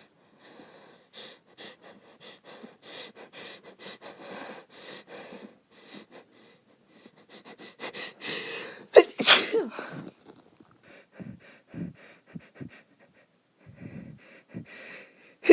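A woman's sneezing fit: a long run of short, shaky breaths and sniffs building up, then a loud sneeze about nine seconds in with a second one straight after. More catching breaths follow, and another sneeze breaks out right at the end.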